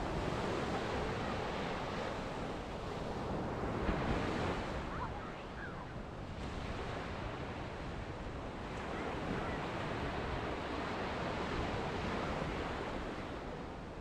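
Small ocean waves breaking and washing up a sandy beach: a continuous surf rush that swells about four seconds in and again later on as the waves break.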